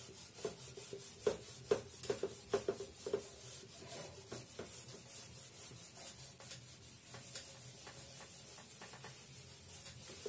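Whiteboard eraser wiping marker writing off a whiteboard: a quick run of short rubbing strokes that thins out after about halfway.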